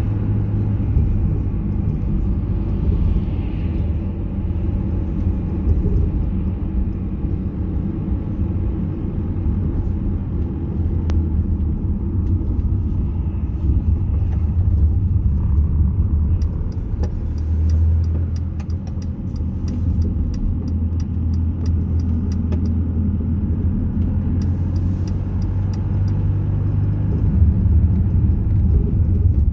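Car road noise heard from inside the cabin: a steady low rumble of engine and tyres. Partway through, the turn indicator ticks quickly and evenly, about three ticks a second, for several seconds as the car leaves a roundabout.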